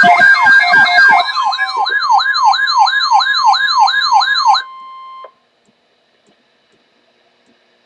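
Siren-like wail sweeping up and down about three times a second over a steady NOAA Weather Radio alert tone. The wail stops a little over four seconds in; the tone goes on alone briefly and cuts off about five seconds in.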